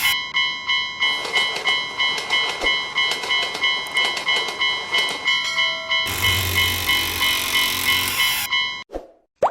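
Railroad crossing warning bell ringing over and over, about three strikes a second. About six seconds in, a broader rushing noise, like a train going by, joins the bell. Both cut off suddenly about a second before the end.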